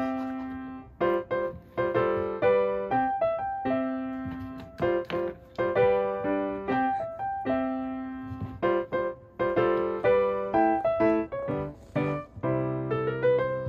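Background piano music: a melody of struck notes, each starting sharply and fading away.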